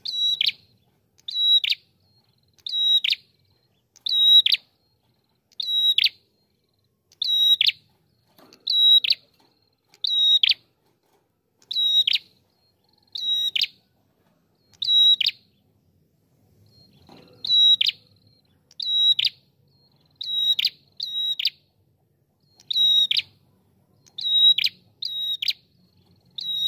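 Ashy tailorbird (prenjak kepala merah) singing: one loud, sharp high note after another, roughly once every second to second and a half, each ending in a quick downward slur.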